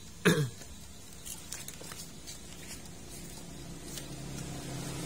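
Faint clicks and light taps of hands working the wires on an air fryer's fan motor, after a short, loud falling sound just after the start. A faint hiss grows toward the end.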